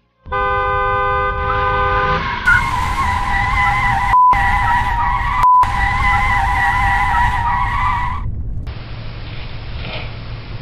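A vehicle horn blares for about two seconds, then tyres squeal in one long wavering screech for about six seconds as a car skids, before it gives way to plain road noise.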